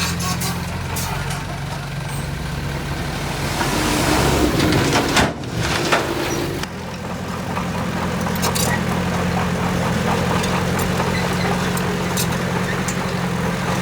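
Heavy diesel construction machinery engine running steadily at a low, even pitch. About four seconds in a loud rush of hiss swells up and cuts off sharply, with scattered light clicks and knocks throughout.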